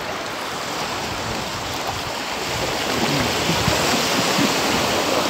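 Sea waves washing against the shore in a steady rush of water, swelling a little louder about halfway through.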